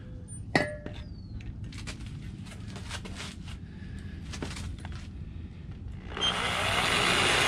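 Power drill boring a pilot hole into an aluminium Teksid 4.6 V8 engine block, the bit lubricated with penetrating oil. There is a low hum with scattered clicks at first; about six seconds in, the drill runs up to speed and cuts into the metal, a loud whir that ends abruptly.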